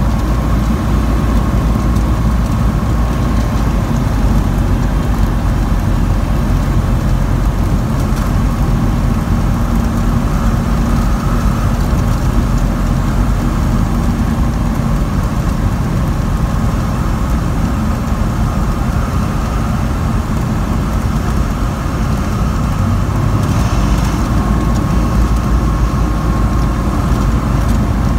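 Cessna 182's piston engine and propeller droning steadily, heard from inside the cockpit during the landing approach.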